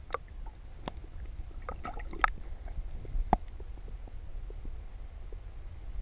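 Muffled low rumble of water moving against an underwater camera's housing, with a few sharp clicks and knocks, the loudest about two seconds in and another a little after three seconds.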